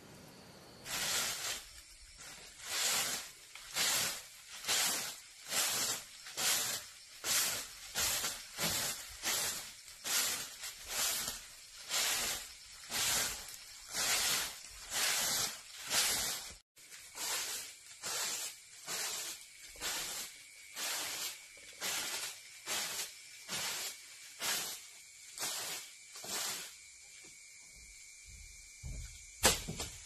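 A broom of dried palm fronds sweeping in a steady rhythm, a brushing swish a little more than once a second, with a brief break about halfway through. A single sharp knock comes near the end.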